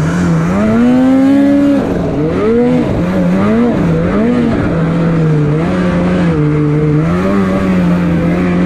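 Snowmobile engine revving up and down several times, then holding a steadier pitch that wavers slightly.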